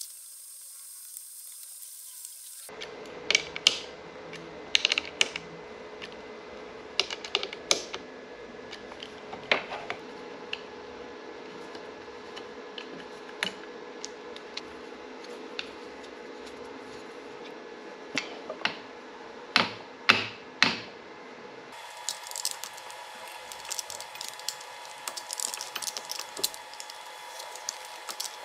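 Irregular clicks and taps of a hand tool driving the screws of a plastic throttle control housing snug on a motorcycle handlebar, over a faint steady hum. The hum changes abruptly near the end.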